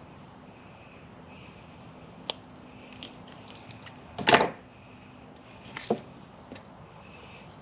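Handling noises from hand work on wiring: a sharp click a little over two seconds in, a few light ticks, then a short scraping rustle about four seconds in and a smaller one near six seconds, over a faint steady hum.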